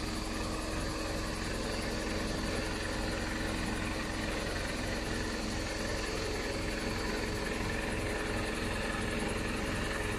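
Truck's diesel engine running steadily with a fast low chug and a steady hum, as it powers the raised aerial work platform.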